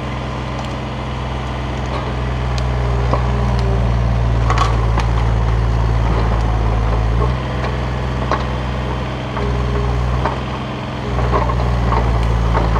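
Takeuchi TB235 mini excavator's diesel engine running steadily under working load, its note dipping briefly a few times as the arm works. Sharp cracks of wood and brush snapping under the bucket break through it, the loudest about four and a half seconds in.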